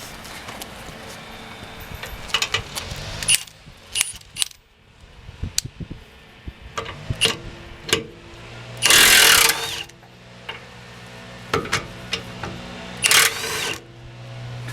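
Milwaukee M18 Fuel 2764 3/4-inch high-torque impact wrench hammering in two short bursts, about nine seconds in and again near the end, working loose seized trailer hitch nuts. Scattered clicks and knocks of the socket and tool come between the bursts, over a low hum that comes and goes.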